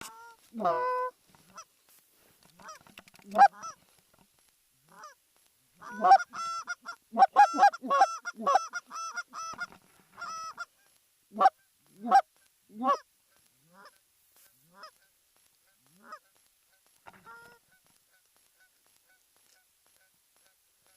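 Geese honking: a run of short honks, thickest a few seconds in and then thinning out to occasional single calls before stopping.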